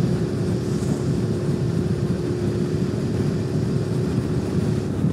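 Suzuki SV650's 645 cc V-twin engine running steadily at road speed, heard from the rider's seat, an even low rumble with a steady hum.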